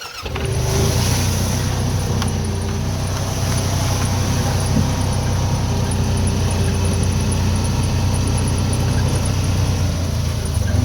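A motor vehicle driving along, its engine giving a steady low drone under a constant wash of road and wind noise.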